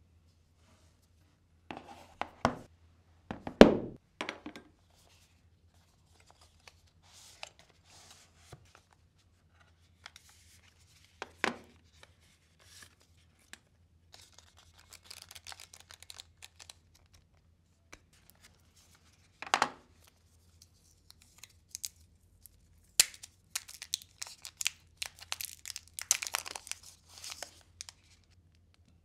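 Unboxing handling sounds: a stylus's cardboard box and plastic tray being slid apart and rustled, with scattered knocks and clicks as the pieces and the tablet are picked up and set down. The loudest knock comes about three and a half seconds in, and a dense run of scratchy rustling comes near the end.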